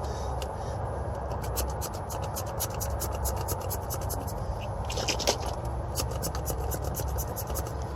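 Hands scraping, rubbing and handling at copper refrigerant pipe while heat-blocking gel is worked on, a run of small clicks and scratches over a steady low rumble.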